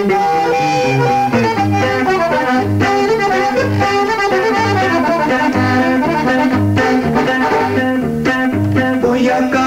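Instrumental passage of a Mexican regional band recording: an accordion playing the melody over guitar, with a bass note about once a second.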